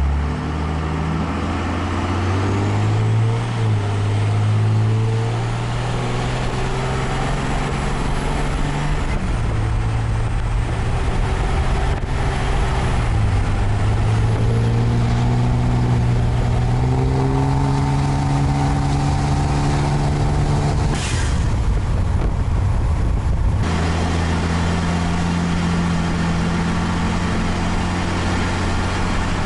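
12-valve Cummins 5.9 diesel in a Ford F250 pulling hard under acceleration. The engine note climbs and falls back several times as the truck goes through the gears. About three-quarters of the way in there is a short hiss as the note breaks off, and then the engine holds a steady pitch.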